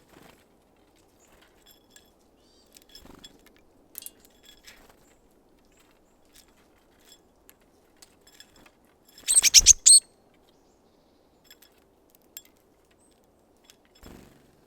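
Small birds at a feeder close to the microphone: scattered light taps and scuffs, and a loud, quick run of sharp taps a little after the middle, lasting under a second.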